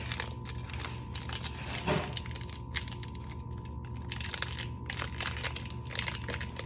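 Plastic slime packaging crinkling and clicking in the hands as a small slime container is unwrapped and opened, over a steady low hum.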